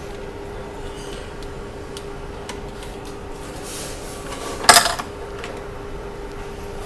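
Small clicks of hand tools and phone parts being handled on a repair bench, with one louder, short metallic clatter about two-thirds of the way through, over a steady hum.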